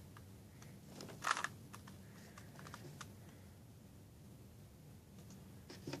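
Plastic layers of a 3x3 Rubik's cube clicking as they are turned by hand: a quick run of clacks about a second in, scattered single clicks after, and another short run near the end.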